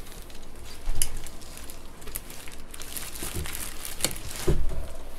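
Plastic wrapping crinkling and rustling as hands grip a plastic-wrapped 3D printer to lift it out of its box, with a few knocks and thumps, the loudest about a second in and near the end.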